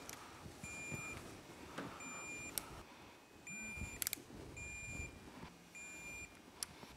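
Electronic torque wrench beeping in short, faint, two-pitched tones as cylinder head bolts are drawn up to their first-pass torque of 18 foot-pounds. A sharp click comes every couple of seconds, after one or two beeps.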